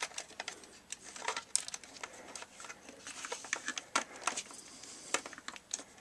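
Irregular light clicks, taps and scraping of plastic and metal as the internal unit of a Sony XDR-S3HD radio is worked by hand out of its cabinet, its cable pushed through and catching as it goes.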